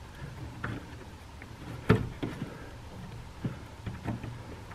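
Small clicks and taps from hands working a rubber washer hose off a broken, brittle plastic windshield washer nozzle, with one sharper click about two seconds in, over a faint steady hum.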